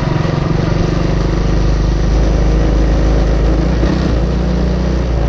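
Small single-cylinder four-stroke kart engine of the Briggs & Stratton Animal type running steadily, a loud low drone with a fast even firing pulse that shifts pitch slightly about four seconds in.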